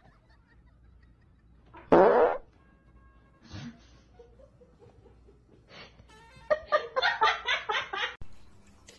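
A loud fart about two seconds in, heard close, as the dog lies on the person's leg. Near the end a person laughs in quick, rhythmic bursts.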